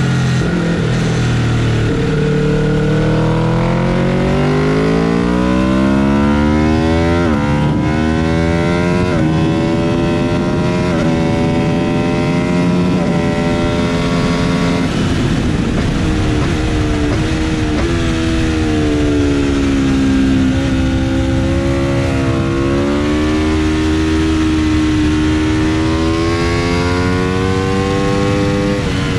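Aprilia RSV4 RF's V4 engine at full throttle. Its revs climb and snap down at a run of quick upshifts in the first half. About halfway the pitch falls away as the bike brakes and shifts down, then it pulls and climbs again, over a steady rush of wind noise.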